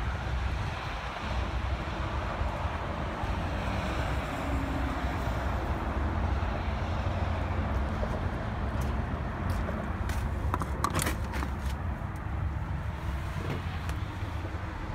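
Peterbilt semi truck's diesel engine idling with a steady low rumble. A short cluster of sharp clicks comes about two-thirds through.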